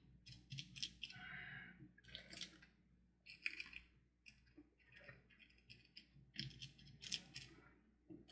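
Faint, scattered crinkles and small clicks of thin iridescent fantasy film being pressed into tacky resin in a silicone mold with the fingertips.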